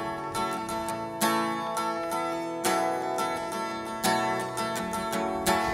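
Acoustic guitar being strummed, chords ringing on, with a heavier strum about every second and a half and lighter strokes in between.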